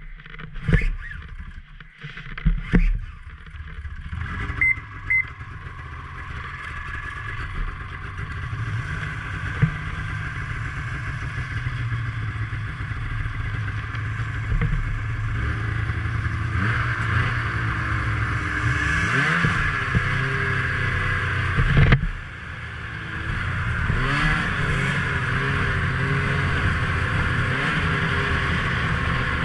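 Ski-Doo snowmobile engine running, with a few knocks and clatter at first. It then grows steadily louder as the sled gets under way, revving up and down a couple of times and briefly dropping off about two-thirds of the way through.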